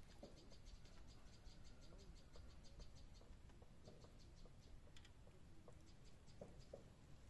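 Near silence: faint outdoor ambience with a low rumble and a faint, fast, high ticking several times a second.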